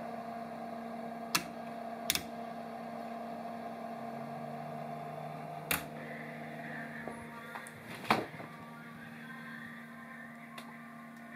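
Steady electrical hum of running DC-powered home electronics, a computer and set-top boxes, with a second lower hum tone joining about four seconds in. A few short sharp clicks and knocks stand out over it.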